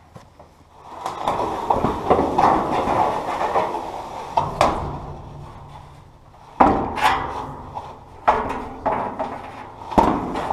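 A long ribbed sheet-metal siding panel being lifted and carried, flexing with a continuous wobbly metallic rattle, then clanking sharply four times as it is knocked and shifted.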